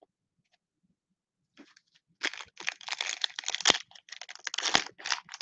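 Plastic cellophane wrapper of a Panini Mosaic trading card pack crinkling and crackling as it is handled and opened, starting about two seconds in after a near-silent pause.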